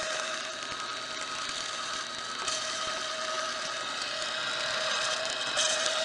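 Bolex magnetic film striper running, its motor and belt-driven pulleys and rollers drawing Super 8 film through to lay down a magnetic sound stripe. It makes a steady mechanical whir with a constant hum.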